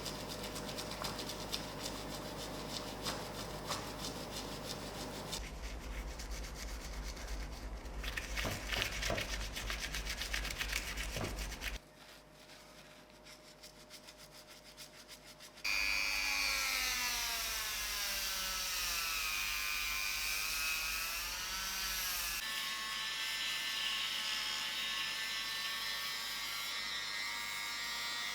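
Rubbing and scraping strokes on metal, then a small electric power tool running, its pitch sagging and recovering as it bears on the work.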